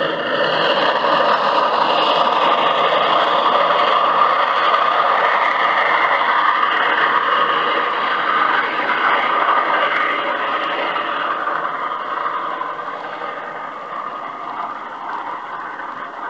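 Old field recording of a steam-hauled train on the move behind ex-Rahway Valley 2-8-0 #15: a dense, steady rush and clatter, growing gradually quieter over the last few seconds. Heard as playback from a 1965 vinyl record, thin and without deep bass.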